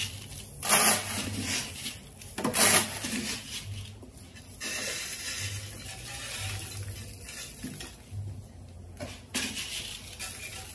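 Dry rice grains scooped by hand from a plastic jar and scattered into a plastic bucket. There are short loud rushes of falling grain about a second and two and a half seconds in, then softer, steadier sprinkling.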